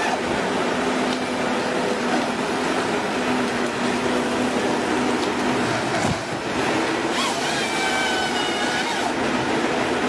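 Forestry harvester at work: its diesel engine and hydraulics run with a steady hum under dense machine noise. About seven seconds in, a higher whine joins as the harvester head works the tree.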